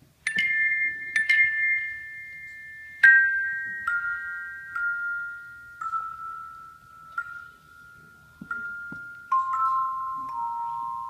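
Handchimes rung one after another in a slow melody, each note struck sharply and left ringing as it fades. About ten notes, stepping down in pitch from high to lower.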